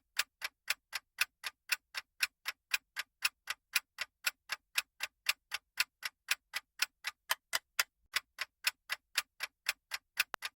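Clock-ticking sound effect of a quiz countdown timer: fast, even ticks, about four a second.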